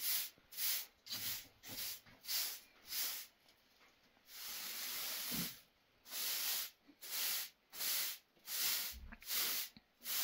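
Short straw hand broom sweeping a floor in quick strokes: a run of brushing swishes about two a second, with one longer sweep around four seconds in.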